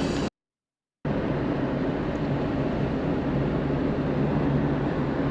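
Steady engine hum and road rumble inside a moving car. The sound cuts out completely for under a second shortly after the start, then carries on unchanged.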